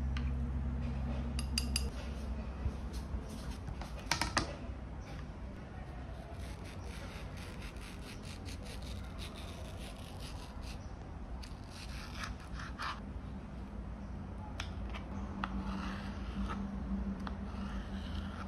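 Food being prepared by hand: a metal utensil stirs oats in a ceramic bowl, then a ceramic knife slices and cuts a mango on a cutting mat, giving scattered taps, scrapes and rubbing sounds. A steady low hum stops about two seconds in.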